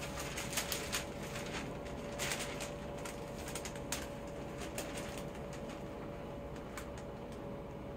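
Hydro-dipping film edged with painter's tape crinkling and crackling as it is handled and laid flat onto the water in a plastic tub, a scatter of small crackles mostly in the first few seconds. A faint steady hum runs underneath.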